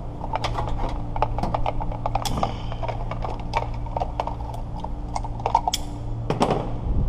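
Irregular clicks and knocks of suction cups and tools being handled, over a steady low hum.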